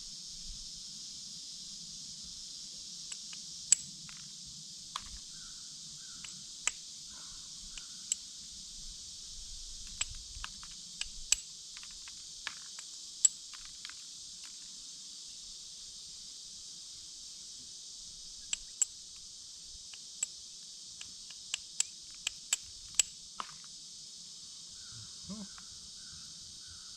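Sharp, irregular clicks of glass being knapped: flakes chipped off the thick green bottom of an old glass Coke bottle to shape an arrowhead. They come in clusters with a pause midway, over a steady high chorus of insects.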